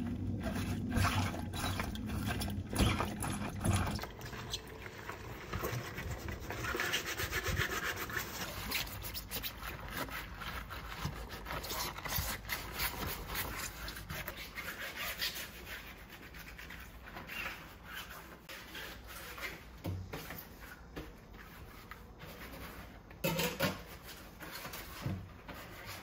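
Scrubbing: a sponge or brush rubbed back and forth over a surface in quick, repeated strokes, louder in the first few seconds, with a couple of light knocks near the end.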